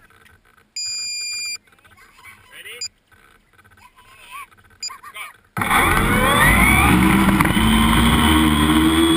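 An electronic beep lasting under a second, about a second in, then a few short chirps. Past the halfway mark a small electric tricopter's motors and propellers start with a sudden loud whirr, several whines rising in pitch and then holding steady.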